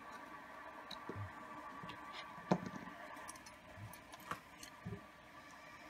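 Light metallic clicks and taps of clarinet keys being handled and fitted against the upper joint, a few seconds apart, the sharpest about two and a half seconds in, over a faint steady hum.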